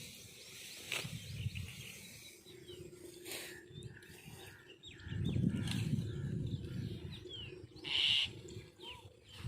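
Small birds chirping, scattered short high calls that sweep quickly down in pitch. A low rumble lasts about two seconds from about five seconds in.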